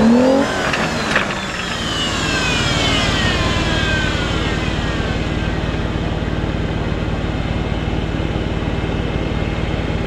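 Jeep Wrangler engine running: a few knocks in the first second, a whine falling in pitch over the next few seconds, then a steady drone.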